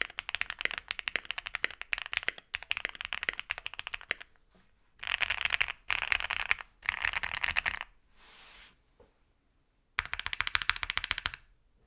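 Typing on a Keychron Q1 gasket-mount aluminium keyboard with stock Gateron Phantom Red linear switches on an aluminium plate. A steady run of keystrokes lasts about four seconds, then come three dense flurries of rapid key presses, a short pause, and one more flurry near the end.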